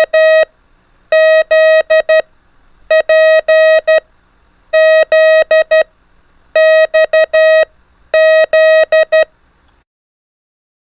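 Morse code practice tone: a single steady beep keyed into dots and dashes, sending the letters P, X and Z, each four elements long, about one letter every two seconds. Six letters go by, then it stops about a second before the end.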